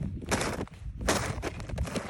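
Footsteps crunching through snow, one step about every three-quarters of a second.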